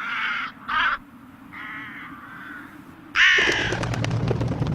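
Harsh bird calls, about five in all, the last and loudest about three seconds in. From that last call on, a low steady rumble with faint crackling sets in.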